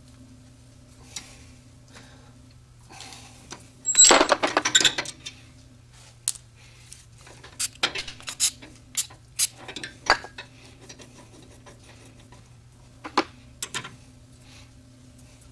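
Metal hand tools clinking and clattering as a bar-and-yoke tubing flaring tool is handled and set up on steel fuel line: a dense jumble of clinks about four seconds in, then scattered sharp clicks, over a steady low hum.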